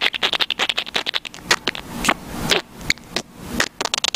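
Pet budgie's beak tapping and scraping right against the camera, a fast, irregular run of sharp clicks and scratches.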